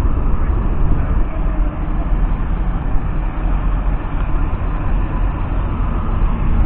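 Valtra N174 tractor's 4.9-litre four-cylinder diesel and Kuhn i-bio+ round baler-wrapper running together: a loud, steady rumble.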